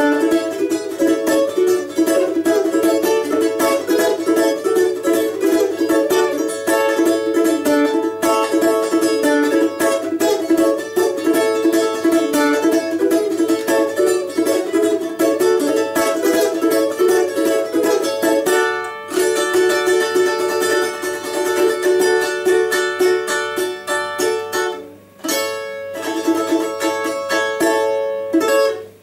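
Four-string balalaika with a doubled first string, tuned to open D major, strummed in rapid, continuous strokes; its strings are tied down onto the first fret with a cord so that it plays in tune. About two-thirds of the way through, the chords ring out longer with fewer strokes, and there is a brief break near the end before a last run of strums.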